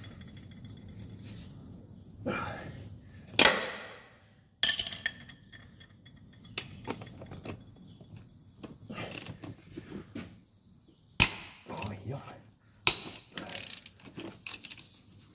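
Metal hand tools clinking, knocking and scraping as a socket on long extension bars is worked at the starter's upper mounting bolt. The sounds come irregularly, with a few sharp clicks.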